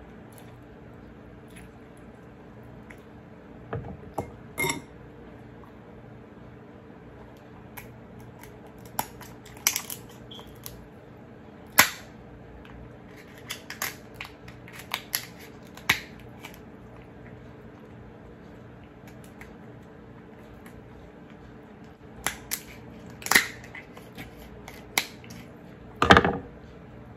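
Alaskan king crab shell cracking and snapping as it is broken apart to get at the meat: scattered sharp cracks and clicks, some in quick clusters, the loudest about twelve seconds in and again near the end.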